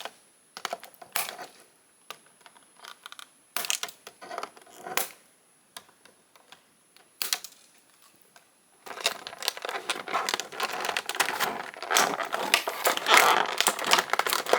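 Plastic packaging being handled and cut to free an action figure: scattered sharp clicks and small rustles, then from about nine seconds in a steady crinkling of plastic.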